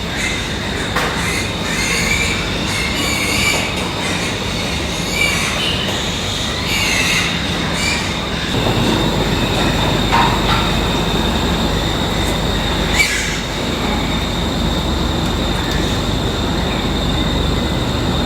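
Pigs squealing again and again, most in the first half, over a steady rushing noise with a thin high whine running through it.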